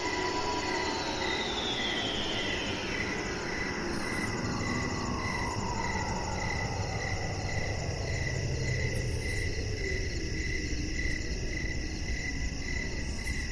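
Crickets chirping in an even pulse of about two to three chirps a second, under an eerie sound-design drone with a long tone that slides slowly down in pitch.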